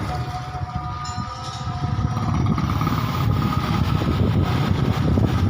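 Small engine idling with a rapid low pulse, growing a little louder about halfway through.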